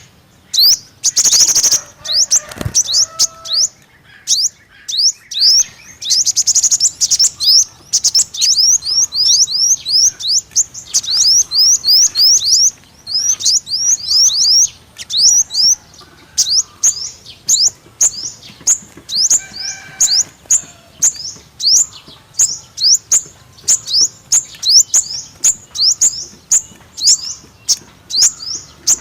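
Sunbird (the Vietnamese 'five-coloured sunbird') singing: a rapid run of short, high, downslurred chirps, several a second, broken by brief pauses.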